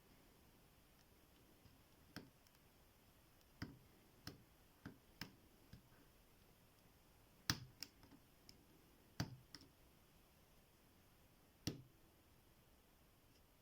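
Lock pick and tension wrench clicking and tapping in the pin-tumbler cylinder of an Abus T65AL/40 padlock while it is being picked: a dozen or so faint, scattered sharp clicks, the loudest about halfway through.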